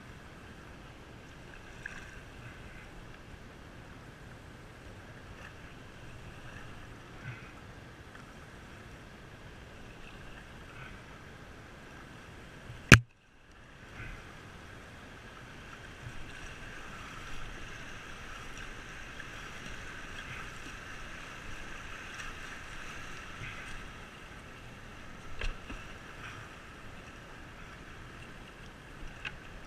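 Moving river water rushing and lapping around an open canoe as it is paddled through a riffle, steady at first and louder from a little past halfway, with a few faint knocks. About 13 seconds in there is one loud sharp click, then a second's drop-out.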